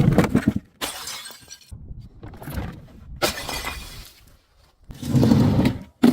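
Glass bottles shattering and crunching in a series of sudden breaks, with a longer crunching stretch near the end.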